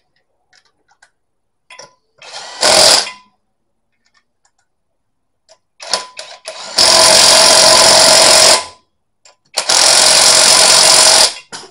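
Cordless impact wrench hammering wheel nuts tight: a short burst about two and a half seconds in, then two long bursts of a couple of seconds each, with a few light clicks between.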